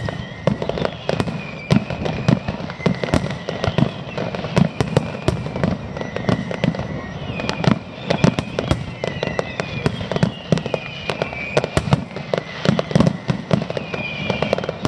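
Fireworks display: a dense, continuous barrage of bangs and crackles, several a second, with short whistling tones sliding through it.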